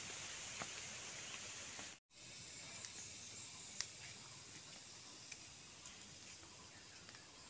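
Faint rural outdoor ambience: a steady high hiss with a few faint clicks. It cuts out for a moment about two seconds in, where the video is edited.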